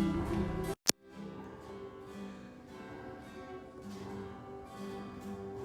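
Acoustic guitar playing a quiet instrumental. Just under a second in, the sound drops out abruptly with a sharp click, and the guitar then goes on more softly.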